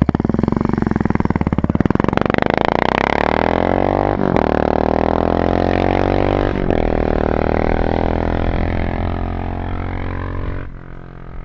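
Suzuki Savage LS650's single-cylinder four-stroke engine, breathing through a Harley-Davidson carburettor and a Raask aftermarket exhaust, revving up from a lumpy idle into a steady, deep run with two brief breaks in the note. It grows quieter over the last few seconds and drops off sharply near the end.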